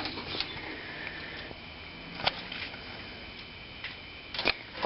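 Low room noise with a faint steady high whine and a few light clicks: one clear click about two seconds in and a couple more near the end.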